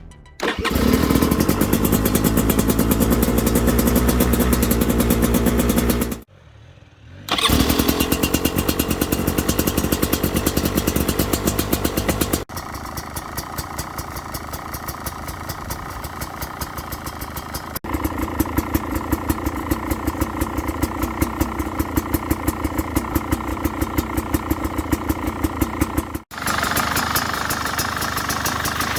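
Brand-new Beta 300RR two-stroke single-cylinder engine running steadily at zero hours, heard in several short takes joined by abrupt cuts, with a drop-out of about a second some six seconds in. The owner is checking whether this mechanical noise from a new engine is normal.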